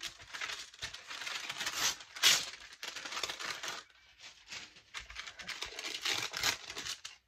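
Sheet of baking paper being torn off against a straight edge and handled, crinkling and rustling, with the loudest rips about two seconds in and again around six seconds.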